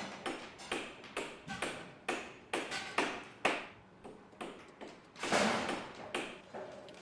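An irregular series of sharp taps or knocks with short ringing decays, roughly two a second, a few with a faint pitch, and one broader, longer hit about five seconds in.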